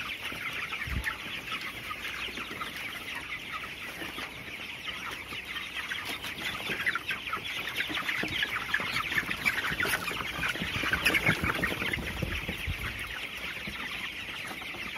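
A flock of 24-day-old broiler chickens calling and chirping continuously in the poultry house, a dense chatter that swells louder about two-thirds of the way through. The flock has, by the farmer's account, come down with ngorok, the respiratory 'snoring' disease.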